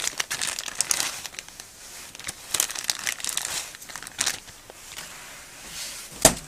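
Plastic packaging of a new valve seal kit being handled and opened, crinkling in irregular bursts. A single sharp knock near the end.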